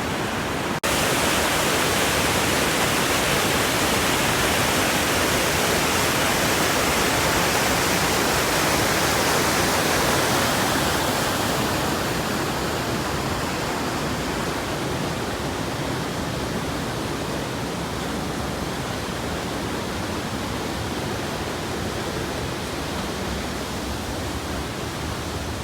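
Waterfall and rapids rushing steadily over rocks, a loud, even roar of water. The sound cuts out for an instant about a second in, then comes back and eases a little in the second half.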